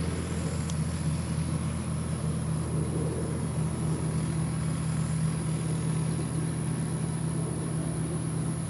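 Ford 3.3 L three-cylinder diesel of a Ford/New Holland 3930 tractor running steadily while it pulls a rotary cutter (bush hog) through a grass field.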